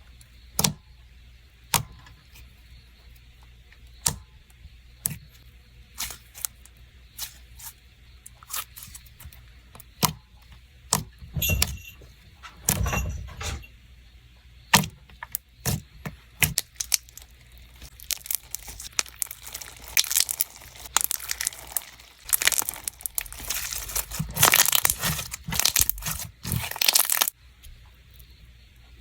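Hands squishing and stretching a chilled clear slime, making sharp pops and clicks. The clicks are scattered at first, then come thick and crackly in the second half before stopping abruptly near the end.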